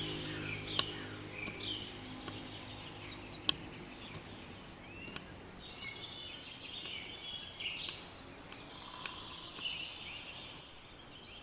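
Small birds chirping in short, repeated calls over background noise, with a few sharp clicks, the loudest about a second in and about three and a half seconds in. A low steady hum fades out in the first couple of seconds.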